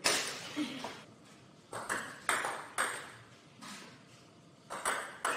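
Table tennis ball knocked back and forth across the table: a string of sharp clicks as it comes off the bats and bounces on the table, irregularly spaced, some in quick pairs, each with a short ring of echo.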